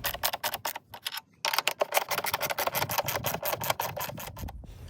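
Socket ratchet clicking rapidly as it tightens the nuts of a car battery hold-down bracket, with a brief pause about a second in.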